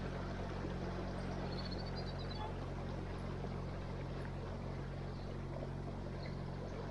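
Narrowboat's diesel engine running steadily, a constant low hum, with a wash of water noise.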